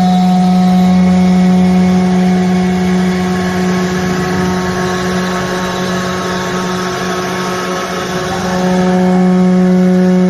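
CNC router spindle running with a steady whine while it cuts wood. The sound eases a little in the middle, and the pitch drops slightly near the end.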